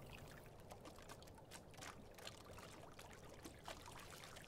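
Faint water sounds from a rowing shell and its oar: light trickling and scattered drips, very quiet.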